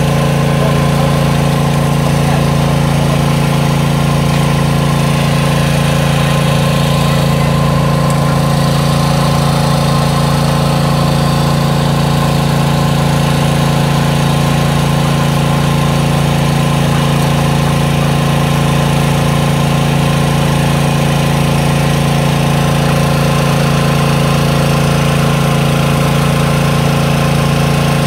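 Small engine-driven water pump running steadily at constant speed, draining a pond.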